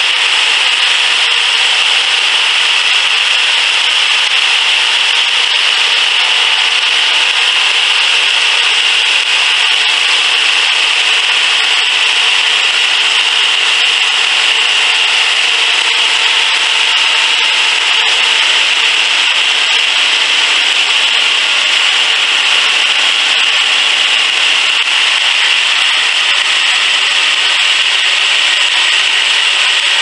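Homemade engine-driven bandsaw sawmill cutting through a log: the blade runs steadily in the wood over the steady running of the mill's small engine under load.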